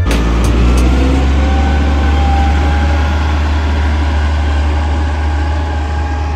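Hidromek MG 330 motor grader's diesel engine running steadily and loudly, with a deep low rumble, as the grader works close by.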